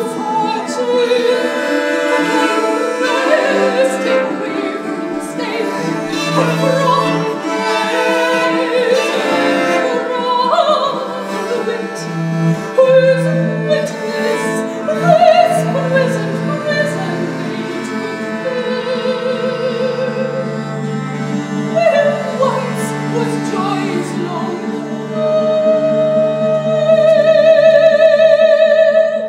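A soprano sings over a consort of viols (viola da gamba) bowing sustained chords. Near the end a single long note with vibrato is held.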